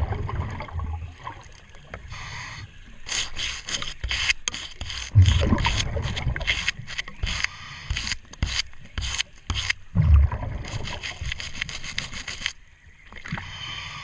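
Underwater brushing of a boat's propeller-shaft anodes with a nylon brush and a wire brush: quick, repeated scratchy strokes in runs of a few seconds. A low bubbling rumble from the diver's exhaled breath comes about every five seconds, near the start, about five seconds in and about ten seconds in.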